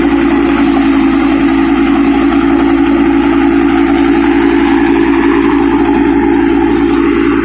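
Harvester running steadily: a constant mechanical hum with a loud, even hiss over it.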